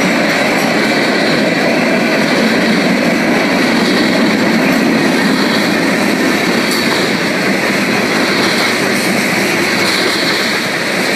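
Freight train cars rolling steadily past on the rails.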